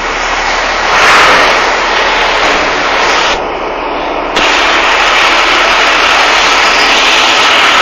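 Loud, steady rushing noise of a fire engine under way on an emergency call: engine, road and wind noise with no siren tone. It goes duller for about a second midway.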